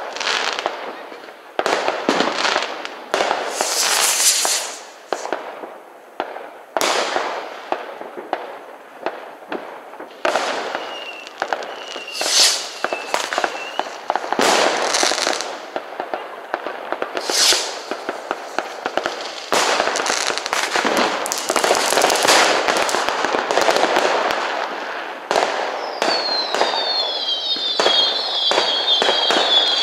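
Fireworks and firecrackers going off in a continuous stream of bangs and crackling. A wavering whistle sounds for about two seconds a little before the middle, and a rapid run of short falling whistles comes near the end.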